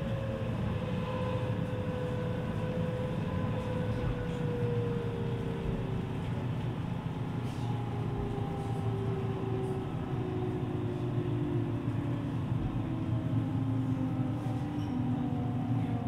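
Running sound inside a JR West 207 series electric train: the early-type VVVF inverter's whine falls steadily in pitch as the train slows under braking, over a continuous rumble of wheels on rail.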